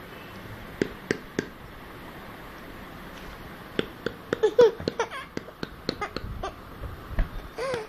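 Baby making short, high-pitched squeals and babbling sounds that bend up and down, mixed with sharp little clicks; a few clicks come in the first second or so, and the vocal sounds start about four seconds in and come thick near the end.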